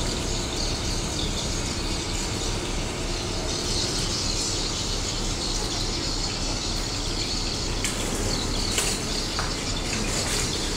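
Steady rush of churning water with a low rumble underneath, from a passenger ferry manoeuvring close alongside a pier. A couple of faint clicks come near the end.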